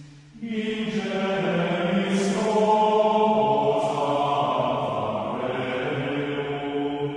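Background music of slow, held, chant-like vocal notes. A new phrase swells in about half a second in.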